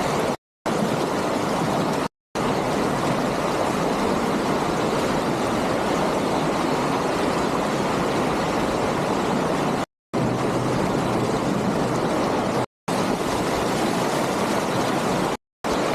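Surf and rushing water mixed with wind on the microphone, a steady noisy wash from an inflatable kayak riding waves. It is broken by a few brief dropouts to silence where clips are cut together.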